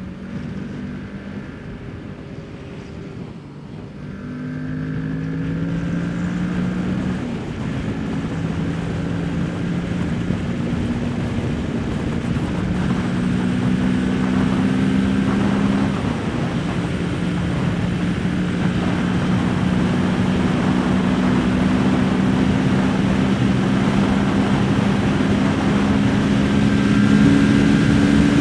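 Kawasaki Ninja 650's parallel-twin engine under hard acceleration, its note stepping at a few upshifts, with wind rush on the rider's microphone building as speed climbs. It gets steadily louder after about four seconds in.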